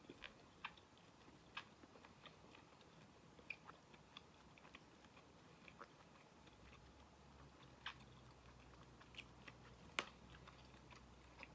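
A person chewing squid quietly, with scattered soft mouth clicks and a sharper click about ten seconds in. A low steady hum comes in about six and a half seconds in.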